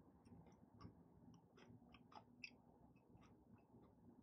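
Faint closed-mouth chewing of a mouthful of pepperoni pizza: soft, irregular wet mouth clicks and smacks.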